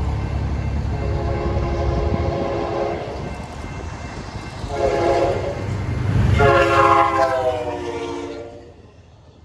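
Locomotive air horn sounding three blasts, long, short, long, after the low rumble of a passing train. The last and loudest blast dips slightly in pitch before the sound fades out.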